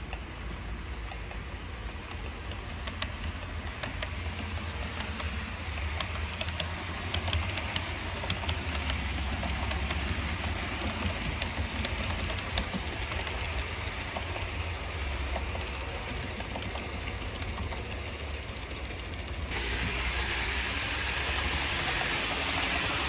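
Hornby OO gauge APT model train running along the track: a steady low motor hum with wheel-on-rail hiss and scattered faint clicks. The hiss jumps louder about 19 seconds in.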